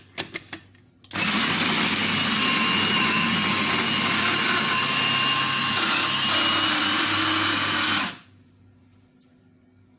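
A few quick clicks, then an electric blender runs steadily with a faint whine for about seven seconds, grinding leafy greens and herbs, and cuts off abruptly.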